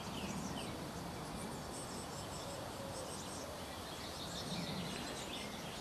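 Nestling birds squeaking inside a wooden nest box: a run of faint, high, thin chirps over steady outdoor background.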